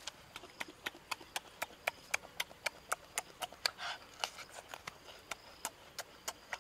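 Open-mouthed chewing of grilled intestine, making wet smacking clicks about four a second.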